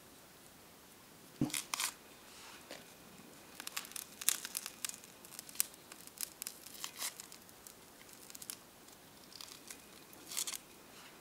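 A small knife scraping and peeling the skin off a small vegetable in short, irregular scratchy strokes, mixed with the crackle of wood burning in a small camp stove.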